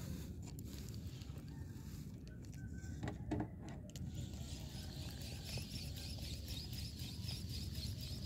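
A few knocks and clicks of a spinning rod and reel being handled on a wooden boat, about three seconds in, over a steady low rumble. From about four seconds a faint, rapid high ticking joins.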